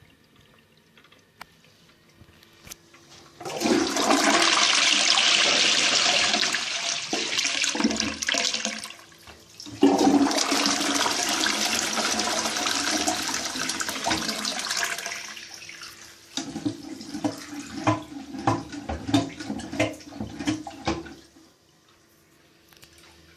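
Lecico Atlas toilet flushing: a loud rush of water starts about three and a half seconds in, dips briefly, then surges again. It trails off into irregular gurgles and stops shortly before the end.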